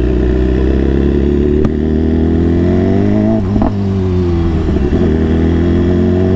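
BMW S1000RR inline-four engine running as the bike rides slowly. Its pitch drifts down and back up a couple of times as the throttle is eased and opened.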